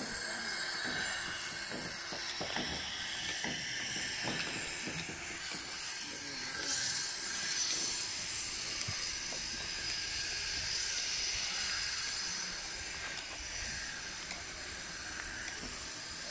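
Steady hiss of outdoor background noise, with a few faint knocks and clicks in the first five seconds.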